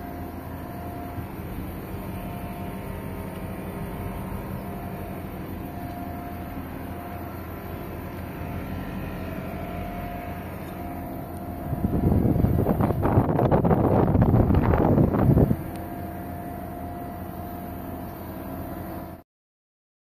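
Outdoor condenser unit of a non-inverter air conditioner running: a steady fan and compressor hum. From about twelve seconds in, a louder rough rushing noise lasts three or four seconds, then the hum carries on and cuts off suddenly near the end.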